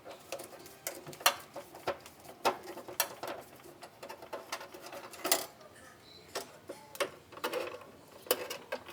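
Irregular sharp clicks and taps of hand tools and metal parts being handled while the water heater's wiring is connected, about one or two a second.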